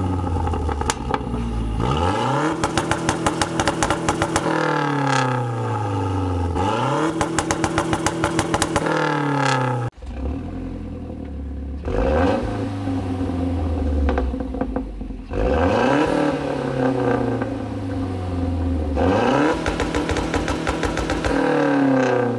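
Mazdaspeed 3's turbocharged 2.3-litre four-cylinder, breathing through a catted downpipe and a non-resonated Magnaflow catback exhaust, revved while stationary. In the first half it is twice held on the 5,000 rpm launch-control (2-step) limiter with a rapid stuttering crackle, then falls away. In the second half it is given several quick revs that rise and fall.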